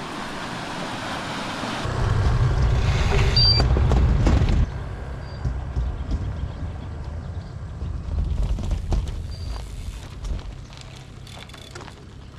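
Gravel bike rolling over a gravel road, with tyre noise and irregular rattling and knocking as it runs over stones. Heavy wind buffeting on the microphone from about two seconds in until nearly five seconds.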